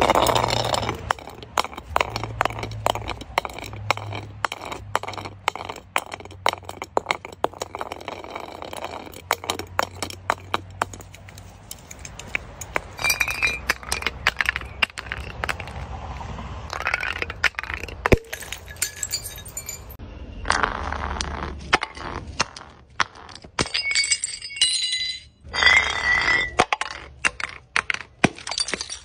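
Glass bottles breaking on hard paving, with many sharp cracks and clinks of glass and shards. The sound is dense at first, then comes in several separate bursts.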